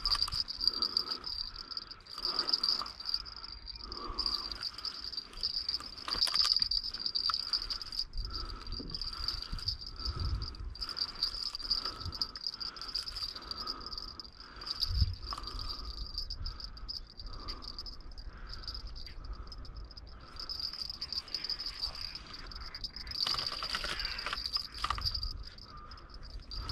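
Insects chirring in a steady, unbroken high trill, with a weaker pulsing chirp lower down and a few dull low bumps.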